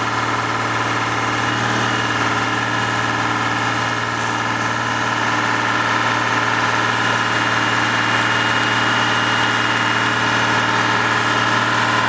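Scrapyard machinery, a grapple crane and a car baler, running steadily: an even engine drone with several held tones and no crunching or impacts.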